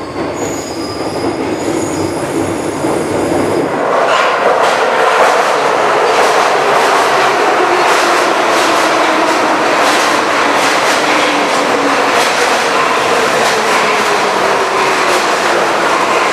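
Budapest metro train sound. For the first few seconds it is heard from on board a moving train, with a steady high whine and a motor tone rising in pitch. At about four seconds it cuts to a Soviet-built M3 line metro train running past the platform: a loud steady rumble with a fast run of wheel clicks over the rail joints.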